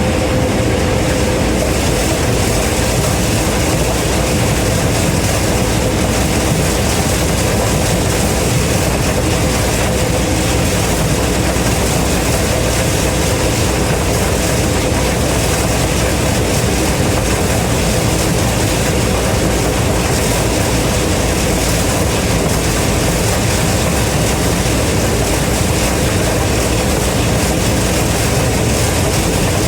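Gleaner M3 combine running steadily while harvesting corn, its engine and threshing machinery making a constant even drone with a steady hum.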